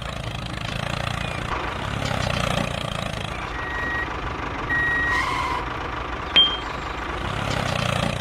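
Tractor engine running steadily while reversing, with two reversing beeps near the middle and a sharp click about six seconds in.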